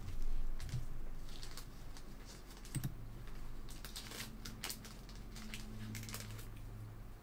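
Irregular light clicks and taps of a computer keyboard and mouse being worked, over a low steady hum that grows stronger near the end.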